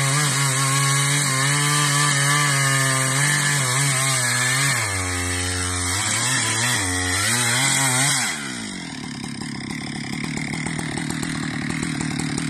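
Husqvarna 372 XP two-stroke chainsaw cutting through wood at high revs. About five seconds in, the engine note sags and recovers under load. About eight seconds in, the throttle is released and the saw drops to idle.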